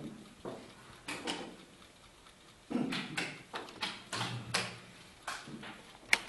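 Quick, irregular clacks of wooden chess pieces being set down on the board and the button of a mechanical two-dial chess clock being struck in a blitz game, with one sharp click just before the end the loudest.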